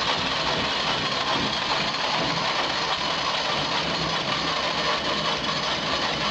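Air-cooled Wisconsin engine on an old Bush Beaver wood chipper, running steadily just after a cold start.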